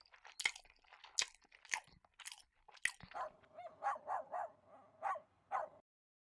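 Crunchy chewing and biting sounds, a sharp crunch about every half second, followed by a run of short pitched sounds about three a second that stops suddenly.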